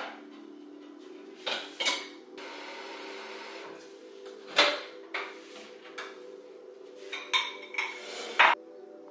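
Kitchen dishes and utensils being handled: a series of knocks and clinks, several of them ringing briefly, with the busiest clatter near the end, and a steady rushing sound lasting about a second a couple of seconds in.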